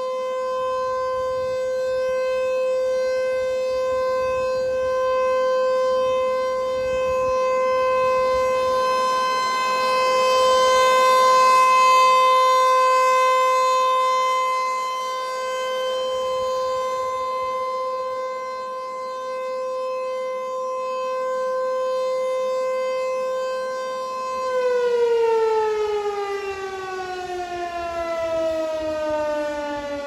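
American Signal Corporation T-128 rotating outdoor warning siren sounding a steady single-tone alert, its loudness swelling and fading as the horn turns. About 24 seconds in the tone is cut off and the pitch falls steadily as the siren winds down.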